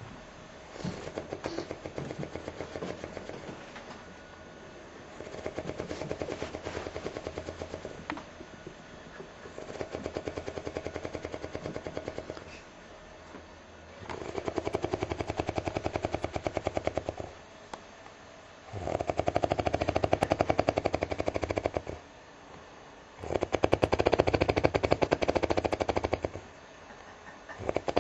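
A person snoring: six long snores about every four and a half seconds, each with a fast flutter, growing louder as they go, and a seventh starting at the very end.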